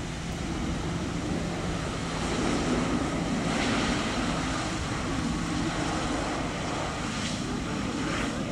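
Jet engine noise from a Boeing 777-300ER's GE90 engines as the airliner rolls out on the runway just after landing, with its speedbrakes up. The sound is a steady rumble that swells a little a few seconds in, with wind noise on the microphone.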